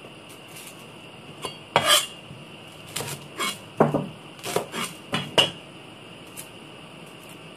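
A cleaver chopping a shallot on a wooden chopping board: a string of about a dozen sharp, irregularly spaced knocks that starts about two seconds in and stops after about four seconds.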